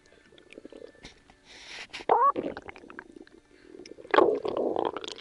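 Human stomach gurgling and rumbling from a hangover. About two seconds in there is a loud squeaky squeal that rises and falls, then more gurgling, and a louder gurgle a little after four seconds lasts about a second.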